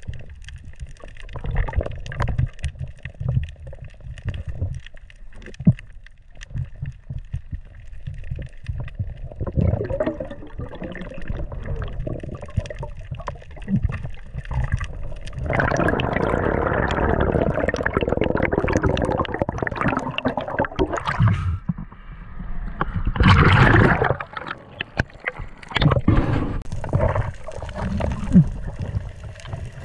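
Water gurgling and rushing against an underwater camera's housing as a freediver swims, with irregular low knocks. A steadier rush of noise lasts several seconds midway, and a short louder rush comes a couple of seconds later.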